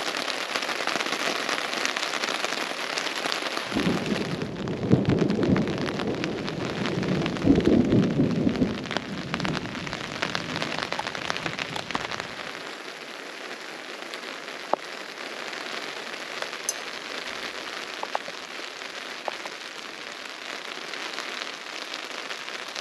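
Steady rain falling. Thunder rolls from about four seconds in, loudest twice, and dies away after about eight seconds, leaving lighter, steady rain.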